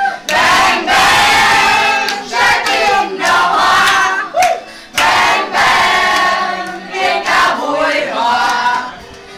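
A group of young people singing and shouting together in a loud chant, in phrases of a second or two with short breaks between, quieter near the end.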